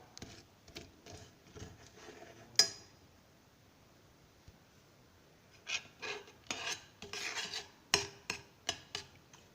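A utensil stirring and scraping granulated sugar around a saucepan as it melts into caramel over the heat, a gritty rasping in short strokes. One sharp clink about two and a half seconds in, then a quiet pause before the scraping starts again near six seconds.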